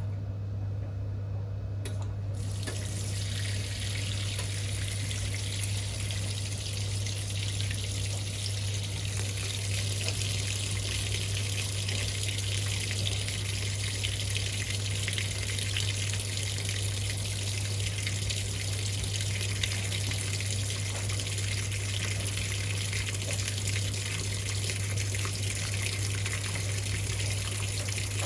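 Water rushing steadily into the tub of a Whirlpool top-loading washing machine, a hiss that sets in about two seconds in, over a steady low hum.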